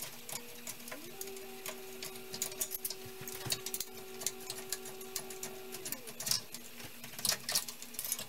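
A drill fitted with an Allen-wrench bit spins up about a second in, runs at a steady pitch for about five seconds and winds down, backing a screw out of a crib's mattress-support hanger. Light metal clicks and ticks from the wire spring frame are heard around it.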